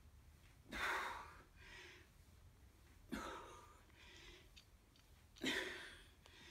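A man breathing hard after a bout of cardio exercise, with three heavy breaths about two and a half seconds apart.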